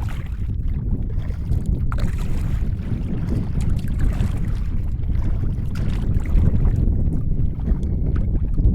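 Wind rumbling on the microphone of a drifting kayak, with water lapping and slapping against the hull in a few faint ticks.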